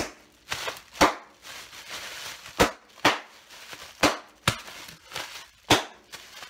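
Clear plastic wrapping crinkling and snapping as it is wrenched and torn open by hand, with a series of sharp cracks, about eight, over a steady crinkle.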